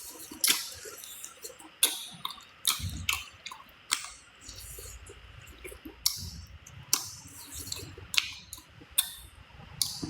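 Someone eating a braised duck wing close to the microphone: sharp, irregular wet smacks and clicks of chewing, roughly one a second.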